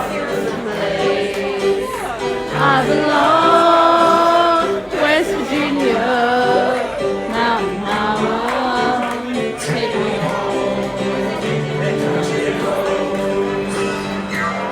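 A group of people singing together along with piano accompaniment.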